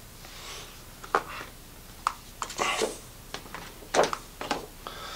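Hands handling a cardboard watch box and its foam insert: a few sharp taps and knocks with brief rustling, the loudest about a second in and about four seconds in.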